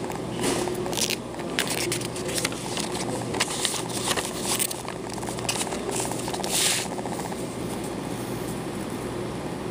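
Paper pages of a paperback book being handled and turned, a run of irregular crinkling rustles and soft scrapes that thins out near the end, over a steady low hum.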